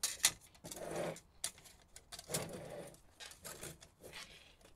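Irregular metallic clicks, knocks and short scrapes of stove parts being handled as a propane adapter is fitted to an Optimus Polaris camping stove.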